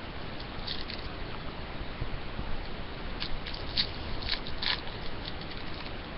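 Hockey trading cards being handled and slid against one another, with a cluster of small, sharp crackles and clicks about halfway through, over a steady background hiss.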